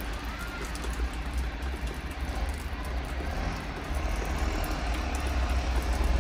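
Meltwater dripping from a snow-covered roof in a thaw, faint ticks of drops over a steady low rumble.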